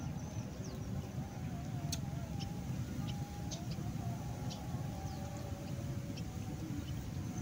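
Outdoor ambience: a steady low rumble, with a faint wavering tone in the first half and short high bird chirps scattered throughout.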